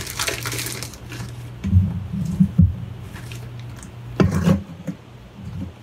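A metal spoon scraping and knocking against a stainless steel mixing bowl as chocolate-coated cereal is scooped into a plastic bag of powdered sugar, with the bag crinkling. A faint low hum runs underneath.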